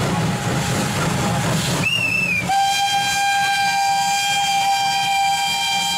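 Steam locomotive passing with a hiss of steam, then its steam whistle: a brief high toot about two seconds in, followed from about two and a half seconds in by one long steady whistle blast.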